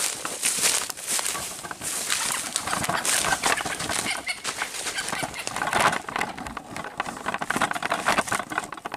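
Dense crackling rustle of dry leaf litter and brush, mixed with junglefowl wings flapping.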